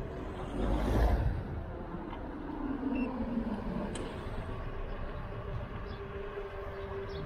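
Electric kick scooter being ridden: wind on the microphone and tyre rumble, with a steady thin hum from the electric motor. There is a louder gust of wind about a second in, and a lower tone slides down about three seconds in.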